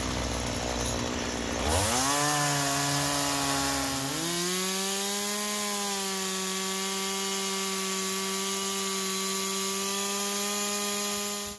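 Two-stroke chainsaw on a trailer-mounted chop-saw rig, idling and then throttled up about two seconds in. Its pitch climbs again about four seconds in and holds steady as the chain cuts through a log.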